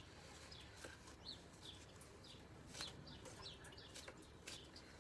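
Faint birds chirping: scattered short, high chirps every half second or so over a quiet background, with a few soft clicks.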